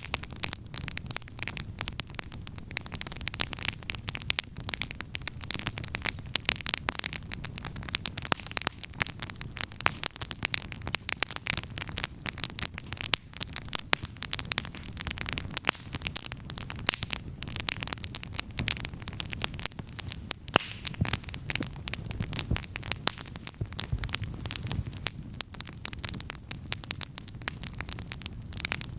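Wood campfire crackling steadily: a dense run of sharp pops and snaps over a low rush of flame.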